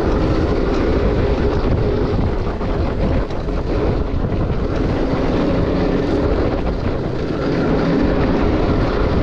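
Yamaha dirt bike engine running while riding a trail, its pitch wandering as the throttle opens and eases, with a brief dip in level about three seconds in.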